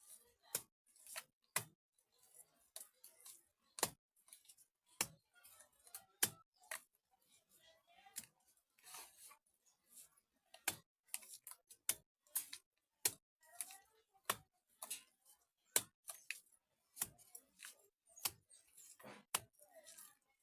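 Hands working mud onto a mud-house window frame. Irregular sharp taps and clicks come about one or two a second, with soft scraping between.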